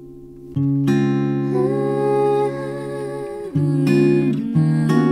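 Instrumental music: an acoustic guitar plays sustained chords. A new chord is struck about half a second in, others come near the middle, and more are struck near the end.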